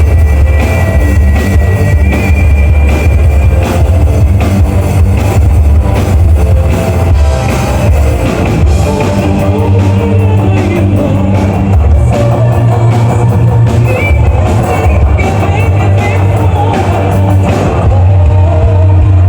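Loud rock music with guitar and drum kit over a heavy bass line.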